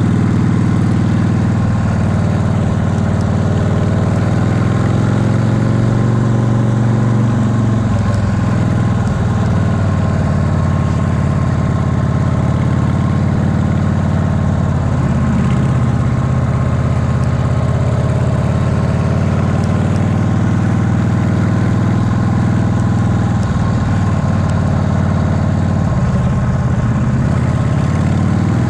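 Chopper motorcycle engine running at a cruise while the bike is ridden, heard from the handlebars. It holds a steady low note that drifts up and down a little with the throttle.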